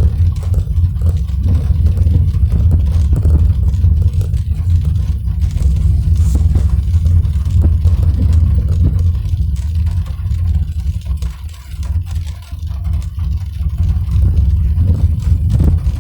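A car driving in the rain: a steady low road and engine rumble with scattered ticks of raindrops on the car. The rumble dips briefly about three-quarters of the way through.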